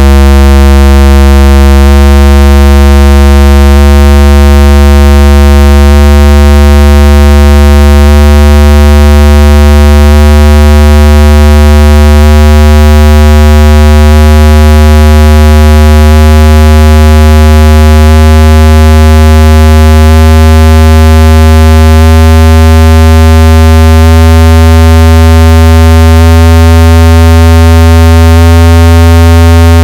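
Loud, continuous synthesized bass tone with a buzzy edge, from a car-audio test disc; its upper overtones shift in steps about every two seconds while the deep low end holds steady.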